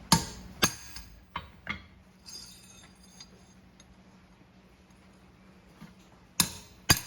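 Hammer striking steel letter stamps into a cold steel horseshoe, stamping a name into it. The blows are sharp and ringing and come in pairs: two at the start, two more about a second and a half in, then a pause before two more near the end.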